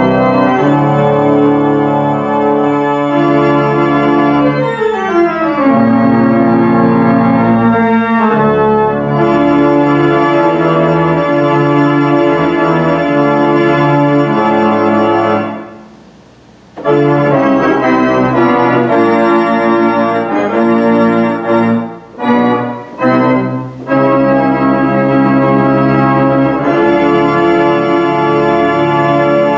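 1,972-pipe Aeolian pipe organ playing loud, full sustained chords, with a quick descending run about five seconds in. The music stops for about a second in the middle, and a few short, detached chords come a little past two-thirds of the way through before the full chords resume.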